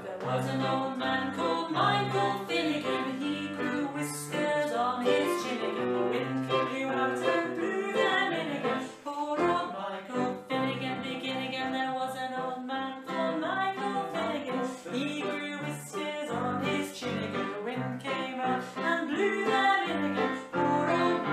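A woman singing a children's song with live digital piano accompaniment.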